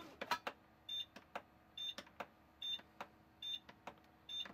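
Digital timer of a 2003 Easy Bake Real Meal Oven being set by repeated button presses: each press gives a plastic click and a short high beep, about one a second, six beeps in all, with more clicks between them.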